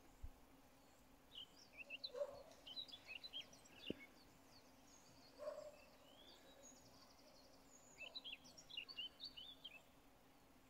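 Faint songbird singing: two phrases of quick, high chirping notes, a few seconds apart, over low background hum. A single sharp click near the middle.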